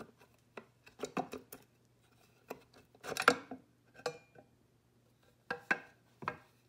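Cast aluminium right-side clutch cover of a KTM EXC engine being worked loose and pulled off the crankcase by hand: a scattered series of metal clinks, knocks and scrapes, the loudest about three seconds in.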